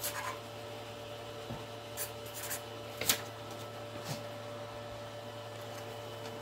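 Marker pen writing on a paper card in a few short scratchy strokes, the card handled and set down, over a steady electrical hum.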